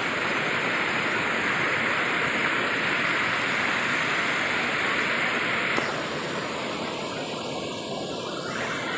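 Waterfall and the stream below it rushing over boulders, a steady, fairly loud hiss of falling water that eases slightly about six seconds in.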